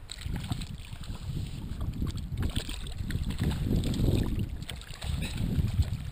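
Wind buffeting the microphone over water slopping against a kayak, with small splashes from herring hooked on a string of feathers thrashing at the surface.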